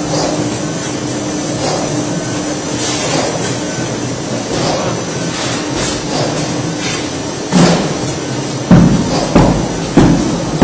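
Automatic cardboard sheet-cutting machine running with a steady mechanical noise, then, from about seven seconds in, a series of loud, sharp knocks roughly once a second as it makes its cutting strokes.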